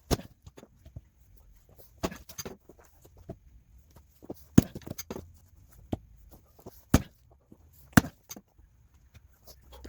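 Firewood being split by hand: a series of sharp chopping strikes into wood, one to two and a half seconds apart, with smaller knocks and cracks between them. The hardest blows land about halfway through and twice near the end.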